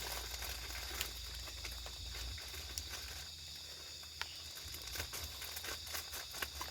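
Steady high-pitched drone of night insects, with scattered light clicks and taps.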